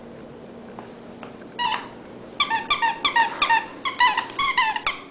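A plush Christmas-tree squeaky dog toy being squeezed in a dog's jaws. One squeak comes about a second and a half in, then a quick run of about nine squeaks, each dipping in pitch.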